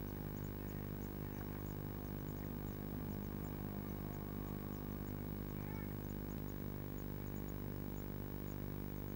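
Steady low electrical hum from the nest-box camera's microphone, with faint, high, very short cheeps scattered throughout: blue tit nestlings begging.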